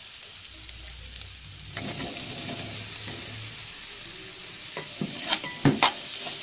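Oil sizzling in a kadai as boiled baby potatoes are tipped into the fried onion and ginger-garlic paste; the sizzle grows louder about two seconds in. Near the end a metal slotted spoon stirs them, knocking against the pan a few times.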